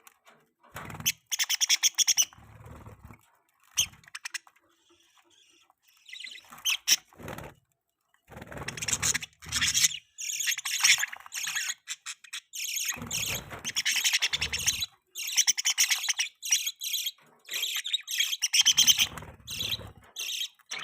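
Budgerigars chirping and chattering in bursts of a second or two, with short pauses between.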